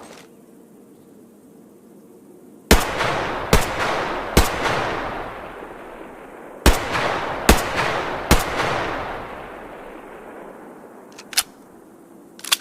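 H&K MP5 submachine gun firing two strings of three single shots, a bit under a second apart, each string trailing off in a long echo. A couple of fainter sharp clicks follow near the end.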